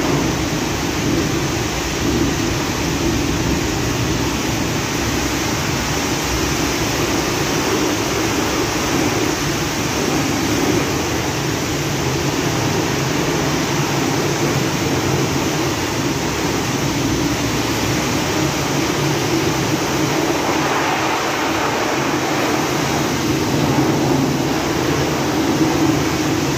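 Pressure washer spraying a high-pressure jet into an open car engine bay: a steady, loud hiss of spray with the machine running underneath.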